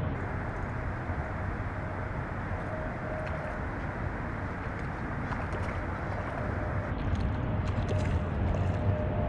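A steady low rushing noise, with a hooked trout splashing at the water's surface as it is reeled in; the splashing gets brighter from about seven seconds in.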